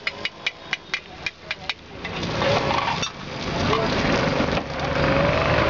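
A metal spatula tapping rapidly on an iron tawa, about four sharp ticks a second, stopping about two seconds in. Then a louder, steady hiss takes over, with people's voices talking over it.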